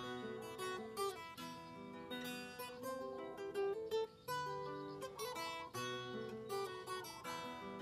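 Background instrumental music: an acoustic guitar playing a plucked melody with frequent quick notes.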